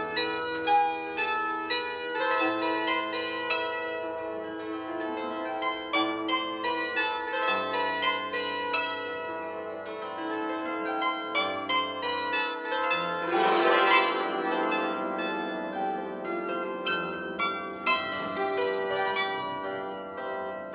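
Bandura, the Ukrainian plucked string instrument, played solo: a melody of plucked notes over low notes, with one louder sweep across many strings about two-thirds of the way through.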